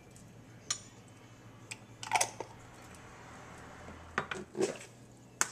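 A few light, separate clicks and taps of a spoon, a glass measuring cup and containers being handled on a kitchen counter.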